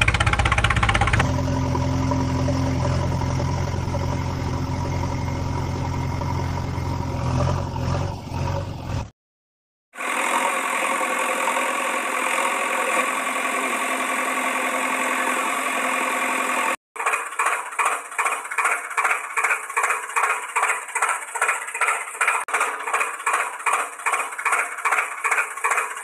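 Tractor engine sound effects dubbed over toy footage. A steady idle gives way, after a brief dropout about nine seconds in, to a higher, rougher engine sound. From about seventeen seconds there is an even chugging at about three beats a second.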